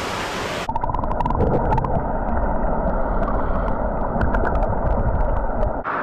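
Rushing waterfall hiss, which under a second in turns muffled and deep as the action camera dips to the water's surface: gurgling and sloshing with many small bubbly clicks, cut off abruptly near the end.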